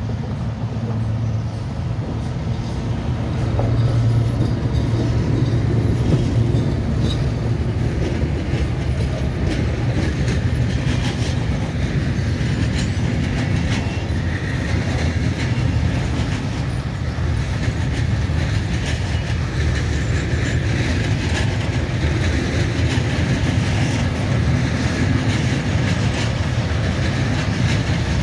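Freight train passing close by: a Škoda class 183 electric locomotive and an SM42 diesel go past, then a long string of open coal wagons rolls by. A steady heavy rumble grows louder a few seconds in, with wheels clicking over the rails.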